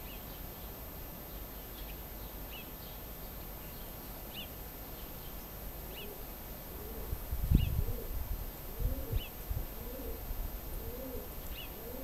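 A small bird chirping, short high chirps every second or two. About halfway through, a pigeon starts cooing, a run of low rounded coos repeated every second or less. Loud low rumbles break in a second or so later and again near the end.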